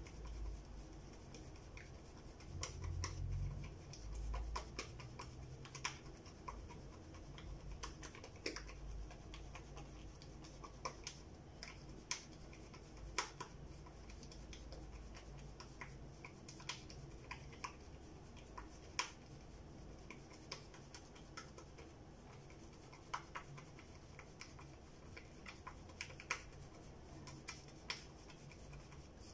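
Razor scraping through stubble in short, irregular strokes, each a small crackling click, with a low rumble of handling a few seconds in.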